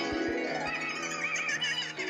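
A short comedy sound clip: music with a wavering, trembling whinny-like cry over it.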